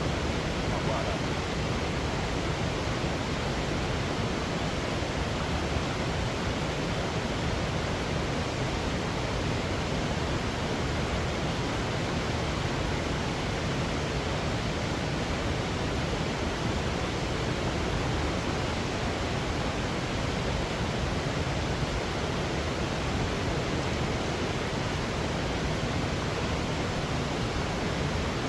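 Steady rush of flowing river water, an even, unbroken noise at a constant level.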